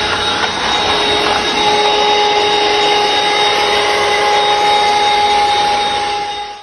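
A 120-watt cordless USB handheld vacuum cleaner running steadily: a dense rushing noise with a motor whine whose tone shifts about a second and a half in. The sound cuts off suddenly near the end.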